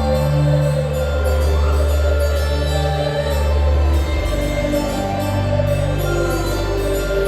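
Music with deep sustained bass tones and slow held notes above them.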